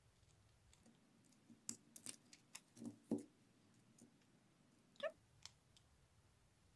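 Faint, scattered clicks and taps of small gold-set rhinestones being handled and placed on a sheet of clear gelatin plastic, with a cluster of clicks in the second and third seconds and one short squeak about five seconds in.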